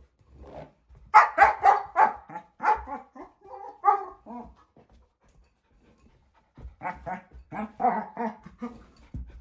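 German shepherd puppy barking in quick runs of short, pitched yips and barks, pausing for about two seconds in the middle before starting again.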